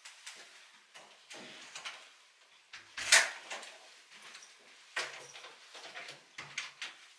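A front door being opened and then pushed shut as a person steps in, with handle clicks and shuffling sounds. A sharp knock about three seconds in is the loudest sound.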